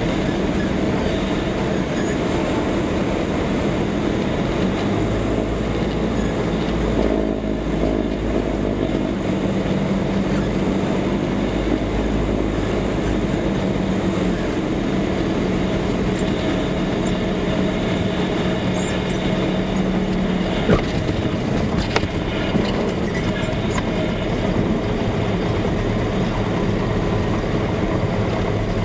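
Cockpit noise of a Cessna 172 landing: the piston engine and propeller running steadily under a loud rush of air. About two-thirds of the way through the engine note changes and a couple of sharp knocks follow, fitting the wheels touching down on the runway.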